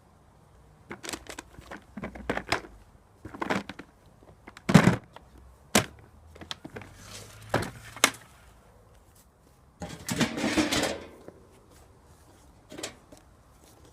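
Irregular knocks, clunks and clicks of objects being handled and set down, the loudest about five seconds in, with a rough scraping clatter lasting about a second near ten seconds in. No vacuum motor is running.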